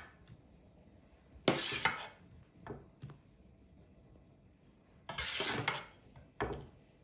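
A metal spoon scraping and clinking in a metal baking tin as cut strawberries are scooped out. There are three short scrapes, about a second and a half in, five seconds in and near the end.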